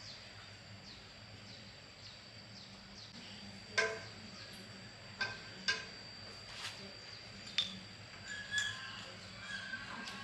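A handful of sharp, ringing clinks, spaced about a second or two apart, over a rural background. Behind them are short falling chirps repeated about twice a second and a steady high whine, and chickens start clucking near the end.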